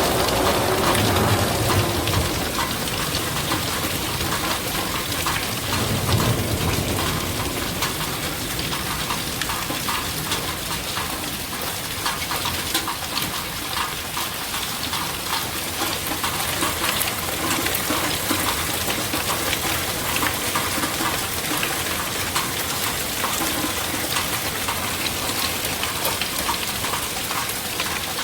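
Steady heavy rain with a dense pattering hiss, and a low thunder rumble in the first couple of seconds and again about six seconds in.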